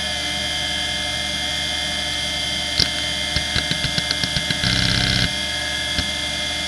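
Quantum ProDrive LPS 270AT 3.5-inch IDE hard drive initialising just after spin-up: the spindle whines steadily at its full 4500 rpm while the head actuator clicks once a little under three seconds in. A quick run of about ten ticks follows, then a short buzzing burst around five seconds in and one last click about a second later.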